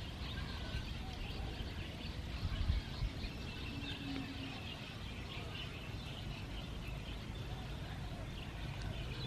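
Quiet outdoor background: a low steady rumble with faint, scattered bird chirps.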